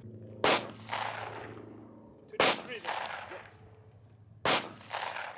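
Three single handgun shots about two seconds apart. Each crack is followed about half a second later by a fainter echo rolling back off the range.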